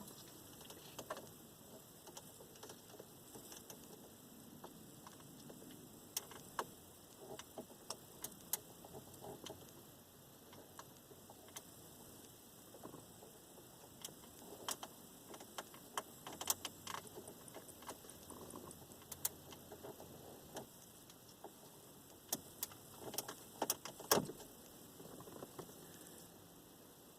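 Scattered small clicks and taps, some in quick clusters, as a retaining clip ring is worked off the overdrive on/off switch so the switch can be removed.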